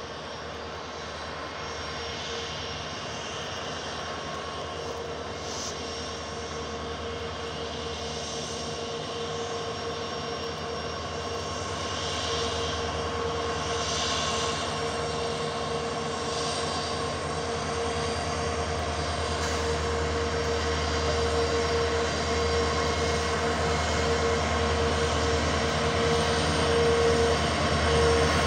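WDP diesel locomotive approaching, its engine running with a steady, even tone over a low rumble, growing gradually louder.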